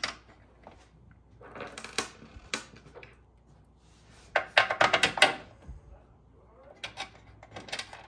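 Steel bolts, washers and nylon lock nuts clinking and rattling as they are handled and picked from a loose pile on a wooden workbench. The clinks come in three short bursts of rapid clicks, the loudest about halfway through.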